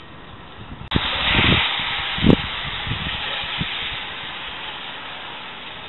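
Thunder from a nearby lightning strike: a sudden loud crack about a second in, then heavy rumbling with two deep booms that slowly fades. Steady rain runs underneath.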